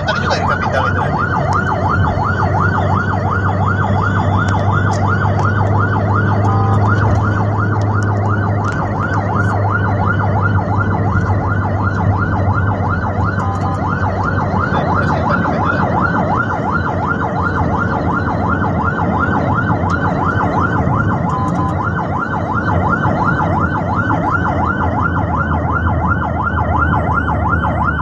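Emergency siren in a fast yelp, rapid upward sweeps about three a second without a break, over the steady drone of the vehicle's engine and tyres heard inside the cabin of the escorted ambulance.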